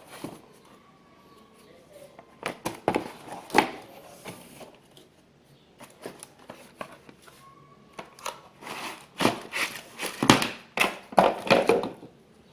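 Laptop box packaging handled during unboxing: irregular crinkling and rustling of wrapping with sharp crackles, in two spells, the busier one in the second half.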